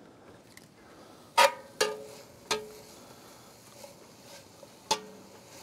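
A metal spatula clinks against a cast iron Dutch oven while vegetables are stirred. There are four sharp clinks, spread over a few seconds, and the first three ring briefly.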